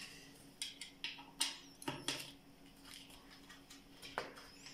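Light metallic clicks and ticks of a folding Allen-key multi-tool working a screw on a bike's front light bracket, a handful of sharp ticks at irregular intervals.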